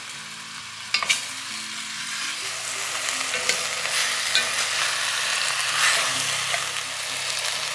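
Chicken thighs, onions, mushrooms and garlic sizzling as they brown in an enamelled casserole pot, stirred and scraped with a wooden spatula. A sharp knock of the spatula against the pot about a second in.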